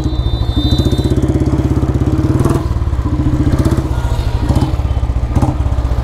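Royal Enfield Bullet single-cylinder engine and exhaust, fitted with an H2-style whistle in the bend pipe, running at low revs with an even pulsing beat. The beat quickens briefly in the first couple of seconds and then slows toward idle. A thin high tone sounds over it during the first couple of seconds.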